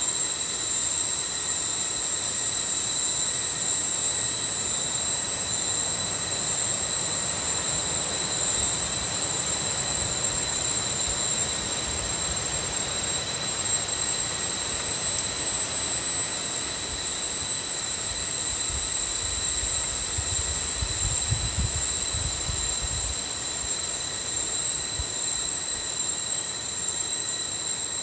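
Steady, high-pitched drone of forest insects, unbroken throughout, over a hiss of leaves and air. A low rumble rises briefly about twenty seconds in.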